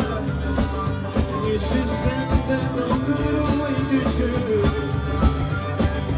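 Live band playing a song: a man singing over acoustic guitar, upright double bass and drums, with a steady beat.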